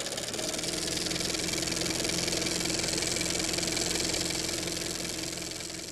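Logo intro sound effect: a steady, engine-like hum with a low steady tone, starting to fade near the end.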